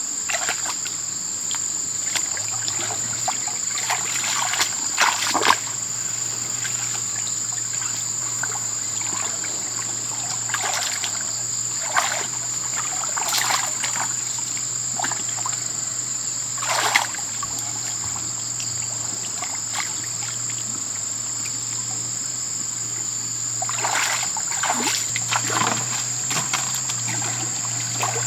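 Irregular splashes and sloshing of shallow muddy water as a person wades and works with their hands in a creek, a few louder splashes among them, over a steady high insect drone.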